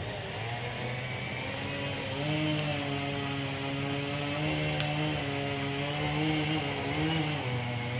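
Two-stroke chainsaw running under steady throttle while cutting into a tree. Its pitch steps up about two seconds in and dips briefly near the end.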